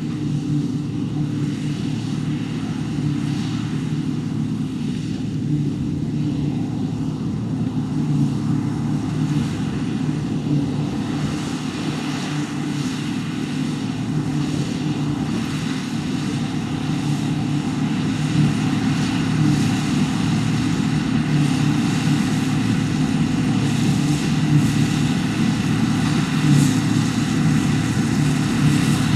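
John Deere 2264 combine harvester running steadily as it cuts spring barley: a constant low engine drone that grows a little louder over the second half.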